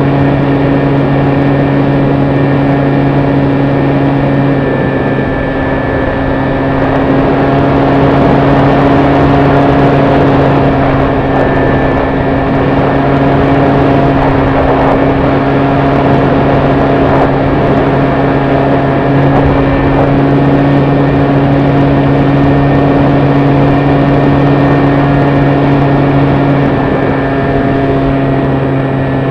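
The electric motor and propeller of a HobbyKing Sky Eye model airplane running at steady cruise throttle, heard from the onboard camera as a loud, steady hum. Rushing air noise over the airframe sits under the hum.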